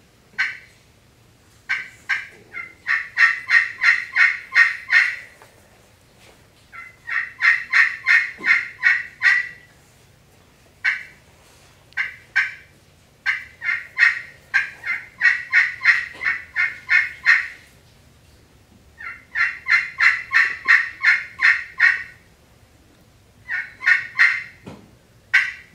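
Friction turkey call worked by hand to imitate the plain yelp of a wild turkey hen. It plays as several runs of evenly spaced yelps, about three a second, with short pauses between the runs.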